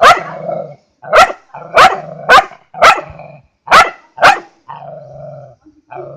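A dog barking sharply, seven barks in just over four seconds, then a drawn-out low growl near the end.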